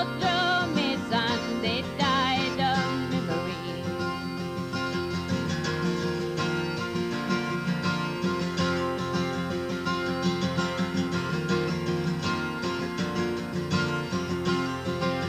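A woman's singing voice finishes a phrase over acoustic guitar, ending about three seconds in. The flat-top acoustic guitar then plays on alone as an instrumental passage.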